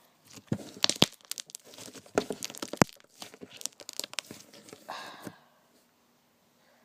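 Slime being squished and pulled by hand, giving a quick run of sharp pops and crackles that stops about five seconds in.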